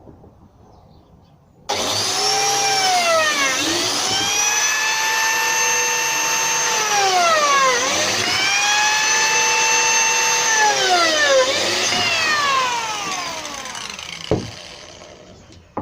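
Electric power tool cutting into plywood: the motor starts abruptly about a second and a half in with a high whine, its pitch dips sharply and recovers three times as it is loaded in the cut, then it winds down near the end, followed by a single knock.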